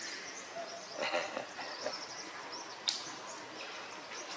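Outdoor forest ambience: a steady hiss with scattered bird calls, and one sharp click about three seconds in.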